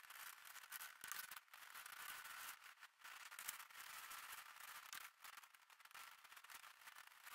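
Near silence: a faint hiss with light crackling.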